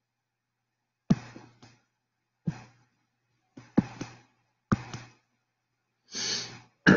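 A run of about six short taps of a stylus on a tablet screen as the graph is drawn stroke by stroke, each fading within a fraction of a second. A soft breath comes about six seconds in.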